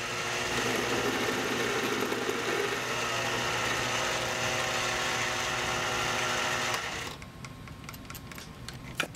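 Mini metal lathe running in reverse with a steady whine while the back of the tool bevels the edge of a steel lag bolt. About seven seconds in the lathe stops and the sound drops away, with a single click near the end.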